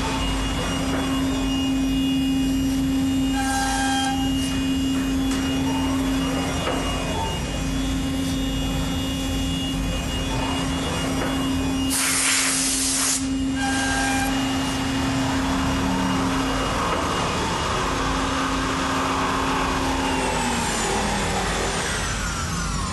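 Thermwood CNC router with its rotary attachment running, a steady machine hum over an even hiss. A brief loud burst of hiss comes about twelve seconds in, a smaller one about three seconds in, and the hum drops in pitch near the end.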